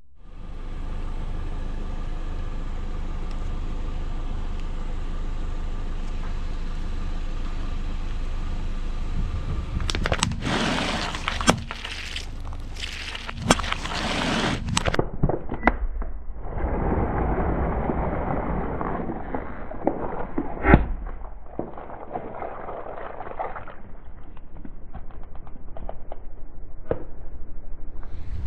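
A car running, with its tyres rolling over and crushing objects: first a steady engine hum, then a few seconds of sharp crunching and cracking, then duller crushing with a loud sharp pop about two-thirds of the way through.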